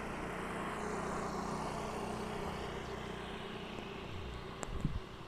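A motorcycle engine running as it passes, its noise swelling over the first couple of seconds and then easing off, with a short thump near the end.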